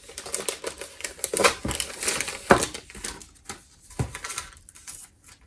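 Paper merchandise being handled at close range: glossy pages and card rustling and flipping, with irregular clicks and a couple of light knocks as items are set down.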